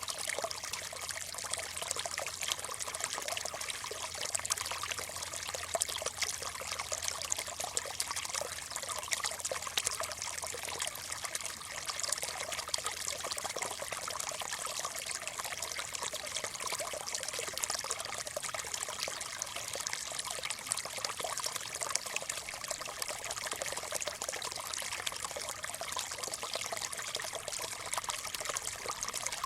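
Small stream trickling and babbling over stones, a steady, unbroken water sound with no gaps.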